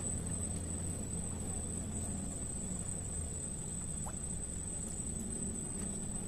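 Steady low rush of a fast-flowing flooded river, with a continuous high-pitched tone over it and a faint short rising chirp about four seconds in.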